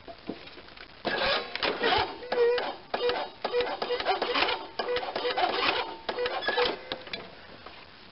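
Electric starter cranking a Briggs & Stratton 22 hp OHV twin-cylinder engine, its flywheel exposed with the shroud off, in a steady rhythm for about six seconds without the engine catching. The carburettor bowl has been drained, and the engine is expected to be slow to fire while the fuel pump refills it.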